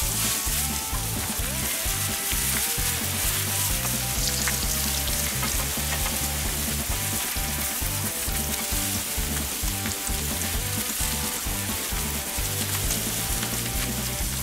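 Beef burger patties, with bacon and onion rings, frying on a fire-heated griddle plate (plancha) under cast-iron burger presses: a steady sizzle.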